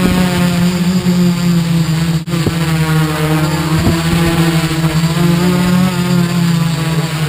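ArduCopter quadcopter's electric motors and propellers running in flight, a loud steady drone whose pitch shifts slightly as the throttle adjusts, heard from a camera mounted on the craft. The sound cuts out for an instant about two seconds in.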